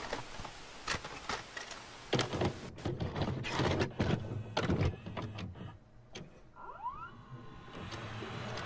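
Clicks and clunks of a videocassette recorder's tape mechanism with a motor whirring, switching from stop to play. A short rising whine comes about seven seconds in, and a hiss swells near the end.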